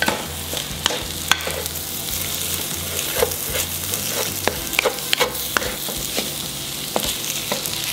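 Fried rice with shrimp and egg sizzling in hot oil in a pan while it is stir-fried, the utensil scraping and knocking against the pan many times at an irregular pace over a steady hiss.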